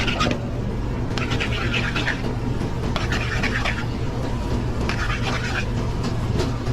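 Commercial kitchen line noise: a steady low hum with short bursts of hissing and scratching every second or two.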